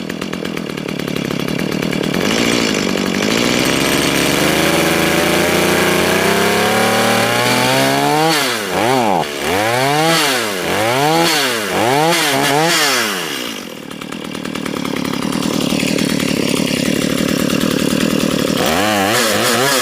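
Stihl MS210 two-stroke chainsaw engine running. Its speed climbs slowly for several seconds, then it is revved up and down about five times in quick succession, settles back to a steady idle, and revs once more near the end. The owner judges it is still getting too much fuel, running smoky.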